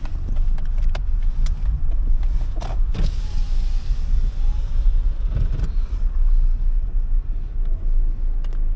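A car running, with a steady low engine and road rumble and a few short clicks and knocks over it.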